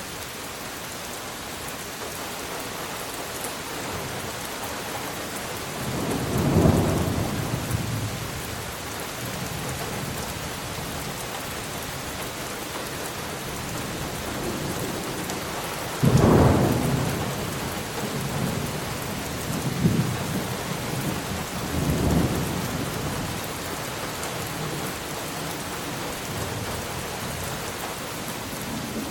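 Steady heavy rain with rolls of thunder: a loud rumble about six seconds in, a sharper, louder clap around sixteen seconds, and lighter rumbles a few seconds after that.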